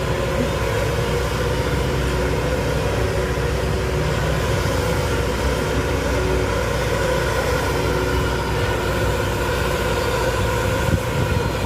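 Backhoe's engine running steadily under a constant low drone while the machine digs soil.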